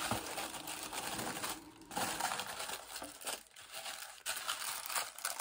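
Packaging crinkling and rustling irregularly as the contents of a beauty subscription box are unpacked by hand.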